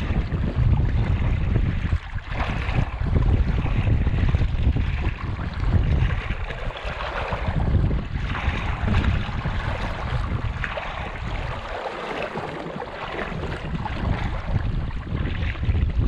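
Wind buffeting the microphone in uneven gusts, over the steady rush of flowing creek water.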